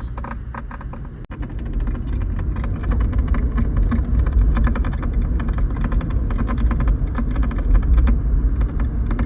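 Toyota Fortuner running with a rapid, dense clattering rattle over a low steady rumble, which becomes louder after a brief dip about a second in. It is an abnormal 'bad sound', the sign of a fault not yet identified.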